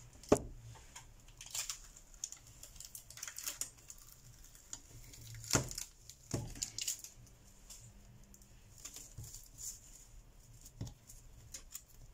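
Handling sounds of a smartphone being taken apart on a bench: clear plastic film crinkling and tearing as it is peeled, with scattered sharp clicks and taps as the heated screen assembly is worked loose. The sharpest click comes about a third of a second in.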